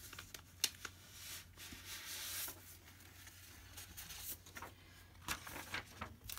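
Faint rustling and a few light clicks and taps of paper and objects being handled, with a sheet of white paper brought onto the table near the end.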